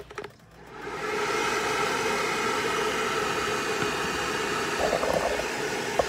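Hair dryer switched on, building up within the first second, then blowing steadily with a steady motor whine under the rush of air.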